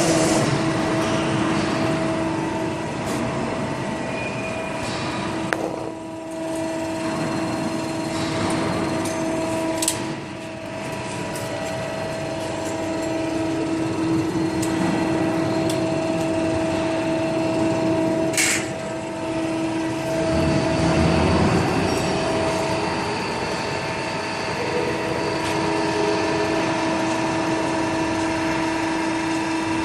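Hydraulic CNC press brake running: a steady machine hum with a held tone over workshop noise, dipping briefly a few times, with a couple of sharp knocks.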